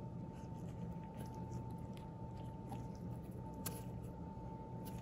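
A few faint clicks as the threaded injector of a windshield chip repair bridge tool is turned by a gloved hand, over a steady low hum.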